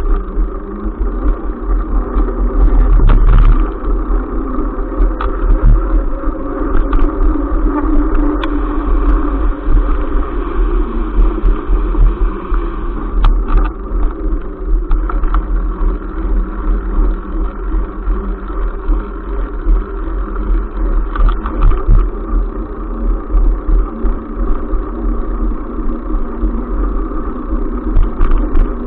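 Bicycle rolling along a concrete path, heard through a bike-mounted camera: a steady low rumble of wind and tyre noise with the rattle of the camera mount, and a few sharp knocks as the bike goes over bumps in the path.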